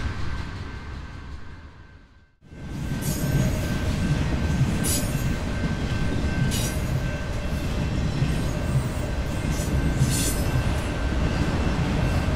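A train running on rails: a steady low rumble with brief high-pitched bursts every second or two. It starts after a short gap about two and a half seconds in, following an earlier sound that fades out.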